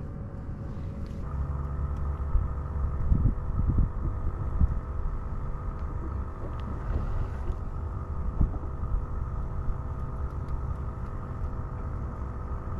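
Small tiller-steered outboard motor running steadily and picking up speed about a second in, with a few low knocks and some wind on the microphone.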